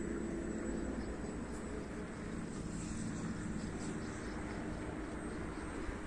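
Distant electric motor and propeller of a 3D-printed RC warbird droning in flight, fading about a second in, over a low rumble of wind on the microphone.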